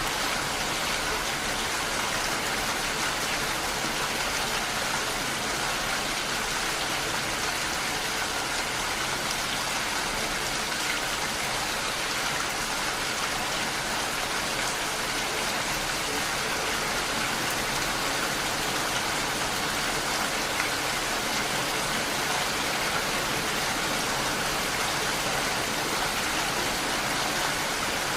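Steady rain striking window glass, an even hiss of many drops that holds level throughout.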